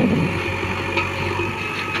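Heavy machinery diesel engine running steadily with a low hum, with a short click about a second in.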